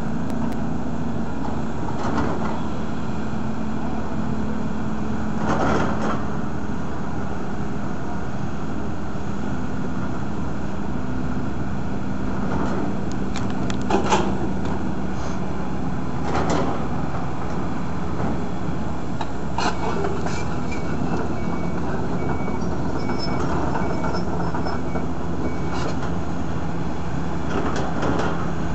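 Case 210 long-reach excavator's diesel engine running steadily while the boom and bucket are worked, with a few short knocks now and then.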